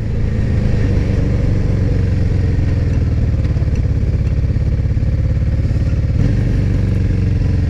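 Yamaha Drag Star 400's air-cooled V-twin engine running at steady revs while under way, with a brief dip in its note about six seconds in.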